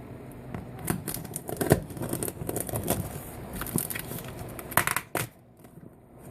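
Cardboard shipping box being opened by hand: irregular tearing, scraping and rustling with sharp clicks, which stop about five seconds in.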